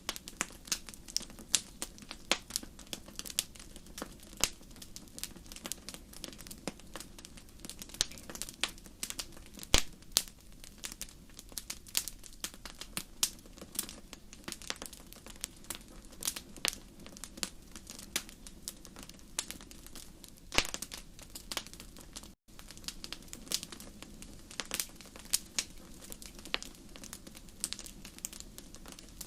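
Wood fire crackling in a fireplace: irregular sharp pops and snaps over a soft, steady low rumble. The sound cuts out for an instant about three quarters of the way through.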